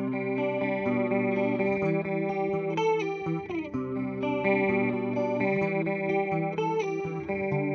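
Electric guitar with humbucker pickups played through a Boss CE-2 analog chorus pedal into a simulated Fender '65 Twin Reverb amp. It plays a run of ringing chords and single notes, with a sliding bend about three and a half seconds in.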